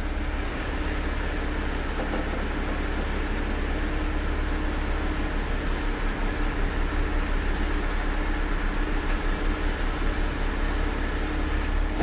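Heavy diesel engine of a 75-ton rotator tow truck running steadily under load while its boom is raised and its winch cables are let out, with a faint high whine over the engine note.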